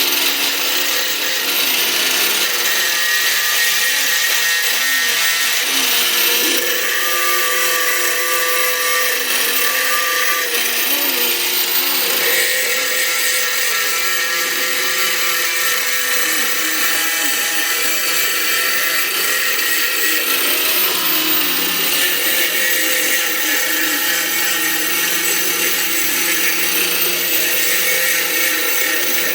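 Handheld electric power tool, an angle grinder, running steadily against steel, with a high motor whine over a coarse grinding hiss.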